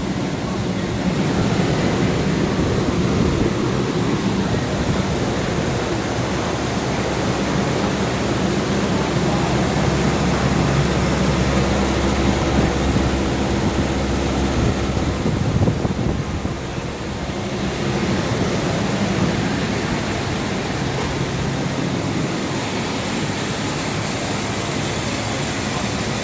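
Steady machinery hum with a rushing noise, which dips briefly about sixteen seconds in.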